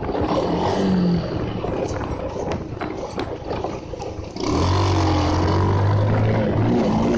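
Bajaj Pulsar motorcycle's single-cylinder engine under way. It runs quieter and lower for a few seconds, then gets louder about four and a half seconds in and holds a strong, steady note.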